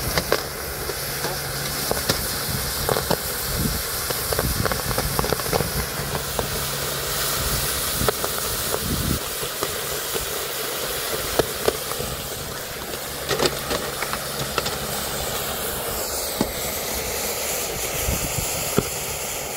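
Molten basaltic lava quenching in a metal bucket of water: a steady hiss of boiling water and steam, with scattered sharp cracks and pops.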